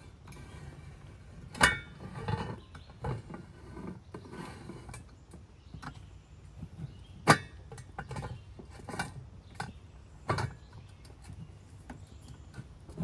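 A metal grill bowl is handled and twisted on a camp grill's burner base to lock it in place: scraping, rattling and small knocks, with three sharp clacks about 1.5, 7.5 and 10.5 seconds in.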